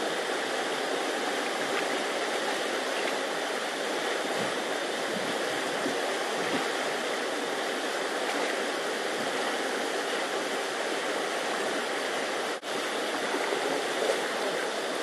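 A flood-swollen river rushing steadily over rapids, with a momentary dropout about twelve and a half seconds in.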